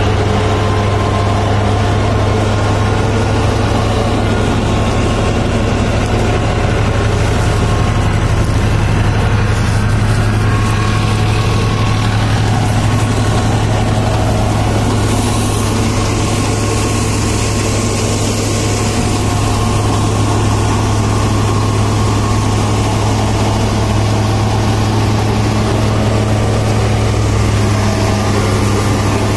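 New Holland 5620 tractor engine running steadily, driving a straw reaper with its belts and pulleys turning: a steady, deep, even hum.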